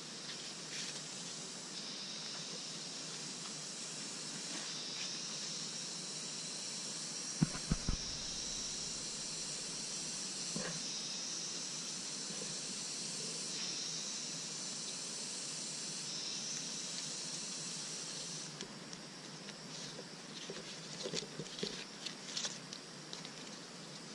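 Dry tree-bark strips rustling and crackling as they are handled: a couple of dull thumps about a third of the way in, then a run of crisp crackles near the end as a strip of bark is split and peeled, over a steady high hiss.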